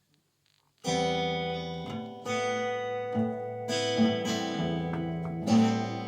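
Acoustic guitar starts about a second in, strumming a chord intro with a new chord every second or so.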